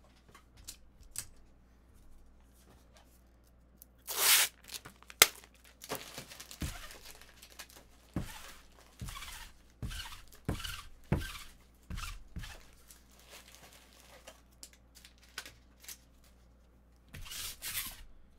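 Trading cards and their packaging being handled on a table. About four seconds in there is a short tearing rip and a sharp click, then a string of taps and rustles, and another rustle near the end.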